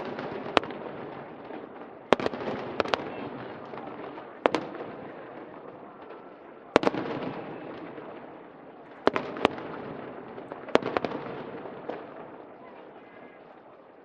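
Aerial fireworks going off: about ten sharp bangs at uneven intervals, each followed by a rumbling echo that dies away, over the steady murmur of a crowd.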